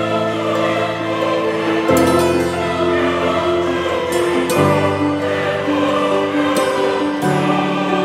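Background music: sustained choir-like chords that change about every two and a half seconds, with a bright shimmering hit at each change.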